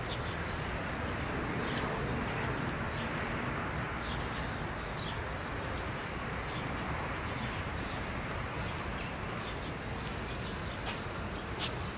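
Outdoor ambience: a steady background hiss and rumble with small birds chirping, short high chirps scattered throughout.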